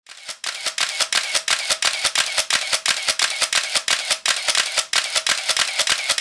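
Camera shutter firing in a rapid continuous burst: a fast, even run of sharp clicks, about eight a second, starting about half a second in.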